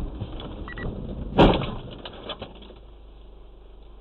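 Car collision heard from inside the car: a sudden loud crash about a second and a half in as the car hits a white sedan cutting across in front, with a short rattle after it, over steady road and engine noise.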